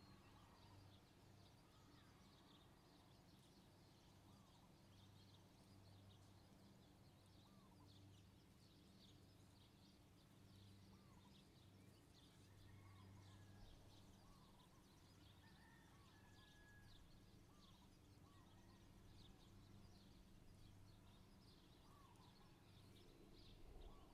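Near silence: faint outdoor ambience with small bird chirps repeating throughout over a low steady hum.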